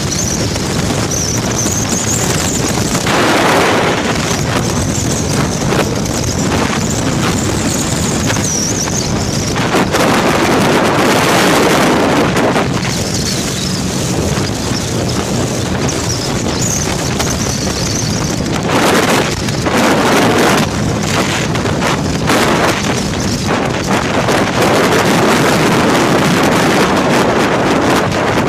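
Wind buffeting a cellphone's microphone on a moving motorcycle, over the motorcycle's engine running steadily, with gusts that rise and fall. A high wavering whine comes and goes, mostly in the first third.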